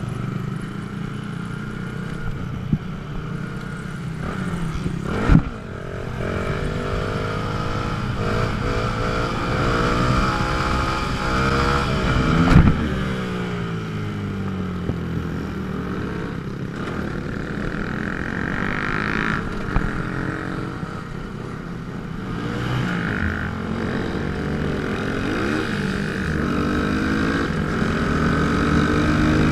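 A small Honda motorcycle's engine running while being ridden, its pitch rising and falling with the throttle and gear changes. It gives two sharp revs, about five seconds in and again about twelve seconds in.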